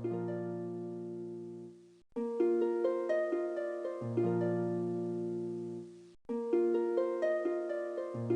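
Background music: gentle plucked-string notes in a harp-like melody over held bass notes, breaking off briefly twice.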